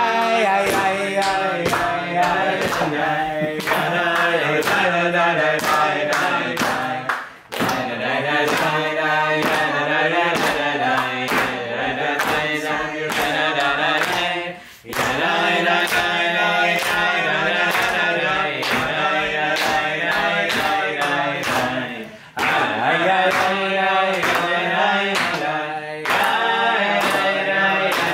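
Music with a group of voices singing over a steady beat, in phrases about seven seconds long with brief breaks between them.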